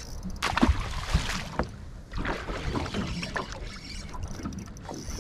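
Several sharp knocks and thumps on the aluminium hull of a small tinny in the first two seconds, then scuffing and handling noise.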